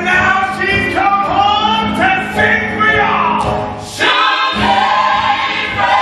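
Musical theatre cast singing a lively gospel-flavoured show tune with band accompaniment, several voices together. The low accompaniment briefly drops out about four seconds in.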